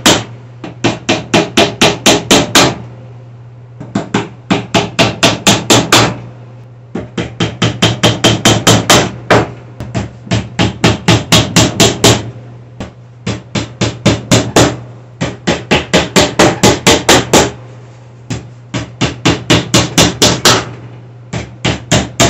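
A hammer driving small nails into the thin back panel of a flat-pack bookcase: runs of quick, even taps, about four to five a second, each run stopping after a few seconds as the next nail is set.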